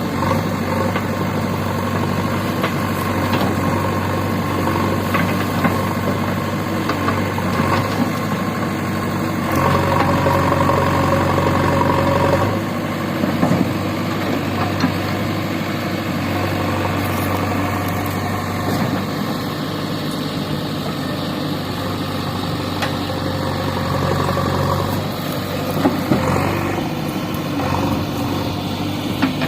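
JCB 3DX backhoe loader's diesel engine running steadily, with its note rising and growing stronger for a few seconds about ten seconds in.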